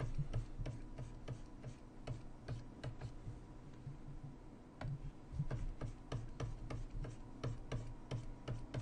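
Light, irregular clicking of computer keyboard keys, a few clicks a second, over a faint low hum.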